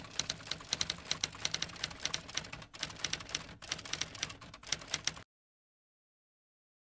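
Typewriter keys clacking in a quick, uneven run of keystrokes, cutting off suddenly about five seconds in.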